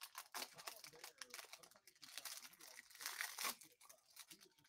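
Faint rustling and crinkling of a stack of trading cards being handled, with many small clicks as the cards slide against each other.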